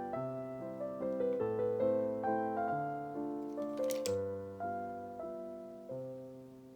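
Gentle piano music, a run of single notes that each ring and fade, dying away toward the end. A short click about four seconds in.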